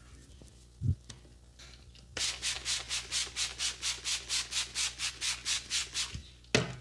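Hands rubbing briskly back and forth in a massage, about five even strokes a second for roughly four seconds, with a dull thump about a second in and another near the end.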